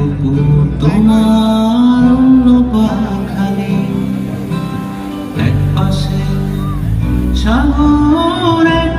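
A song playing loudly, with a singing voice carrying a melody over plucked guitar and a steady low accompaniment.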